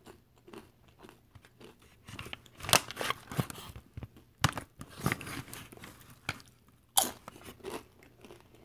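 A person chewing and crunching tortilla chips loaded with cheese, salsa and meat. The crunches are crisp and irregular, with two sharper ones nearly three seconds in and about seven seconds in.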